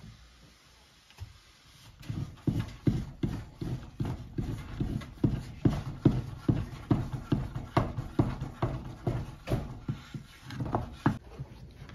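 Wooden spoon stirring and working a thick porridge in an aluminium pot, making dull rhythmic knocks and squelches about two to three times a second; it starts about two seconds in and stops near the end.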